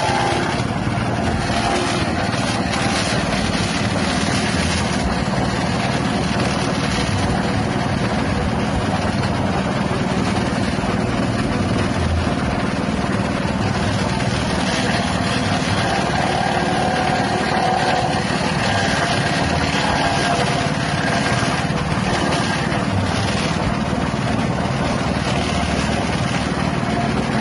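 Grass chopper driven by a 6.5 hp petrol engine running steadily at working speed, its blades chopping green grass stalks as they are fed in.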